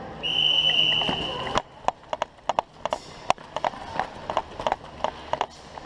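Game-start buzzer sounding one steady high tone for about a second and a half, then quick hard footsteps of players running off on a hard floor, two to three sharp steps a second.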